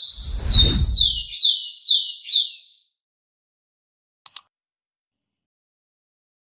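Rufous-collared sparrow (tico-tico) singing: a rising whistle followed by five quick down-slurred notes, the phrase ending about three seconds in. Two quick clicks follow about four seconds in.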